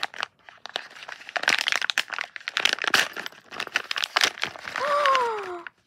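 Blind-bag wrapper crinkling and rustling as hands tear it open and handle it, in rapid irregular crackles. Near the end a voice gives a brief falling exclamation.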